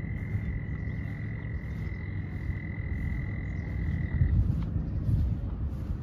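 A frog trilling: one long, steady trill held on a single pitch that cuts off about four seconds in, over a low rumble.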